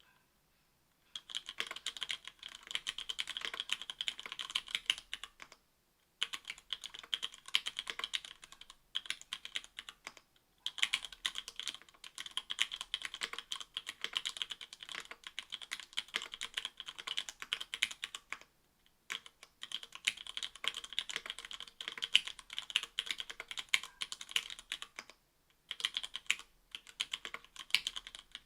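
Typing on stock Cherry MX Black 60 g linear switches in an Octagon V3 keyboard with an aluminium plate and GMK keycaps. The keystrokes come in fast runs broken by short pauses, starting about a second in.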